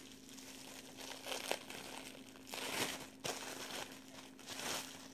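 Clear plastic bag crinkling in irregular bursts as it is handled, with a faint steady hum underneath.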